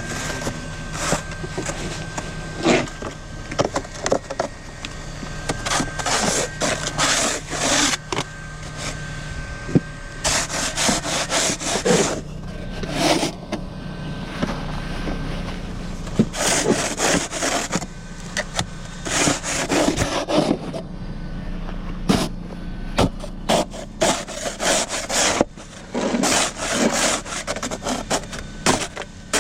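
Snow shovel scraping and pushing snow in repeated, irregular strokes, over a steady low hum.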